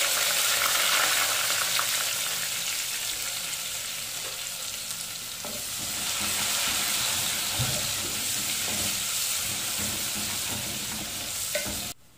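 Sliced onions sizzling as they fry in hot oil in an aluminium pot, stirred with a wooden spoon. The sizzle is loudest at first and stops suddenly near the end.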